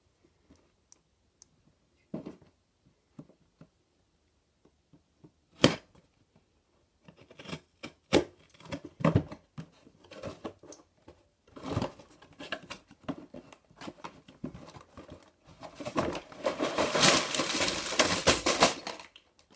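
Cardboard Lego set box being opened by hand: scattered light clicks and a sharp snap about six seconds in, then tearing and scraping of the box. Near the end comes a dense crinkling as the plastic bags of Lego pieces are tipped out.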